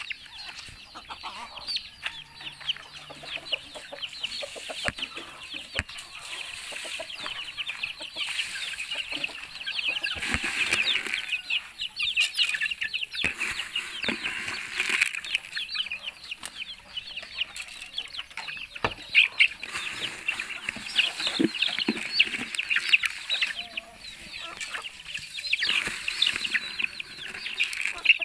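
A flock of chickens clucking and chirping, a dense run of quick high calls that grows louder in the second half.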